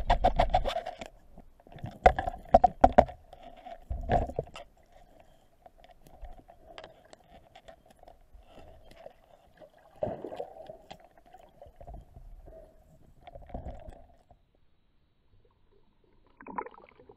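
Muffled underwater sound through a camera's waterproof housing as a spearfisher swims: a steady faint hum, broken by several short bursts of knocking and rumbling. It drops almost to nothing a few seconds before the end.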